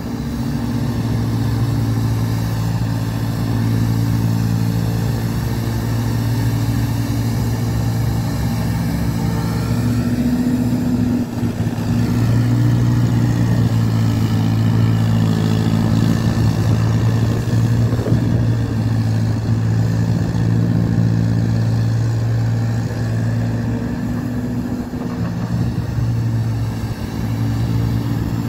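LPG-fuelled engine of a Gansow/IPC 161 ride-on sweeper running steadily as the machine drives across brick paving with its sweeping brushes down. The machine is freshly repaired and serviced, with a new clutch. The engine note dips slightly a few times as the sweeper turns.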